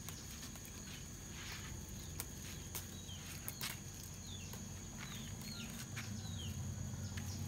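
Garden ambience: an insect's steady high-pitched trill throughout, with a bird giving several short falling chirps in the middle. Light snaps and clicks of leaves being plucked by hand from the bonsai come over a low hum.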